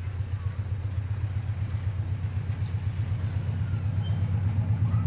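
Miniature park train's locomotive approaching: a steady low engine hum that grows louder as it nears.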